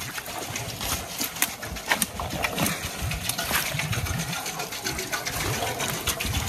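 Spring water running and splashing at a water-wheel pump, with irregular clicks and knocks over it.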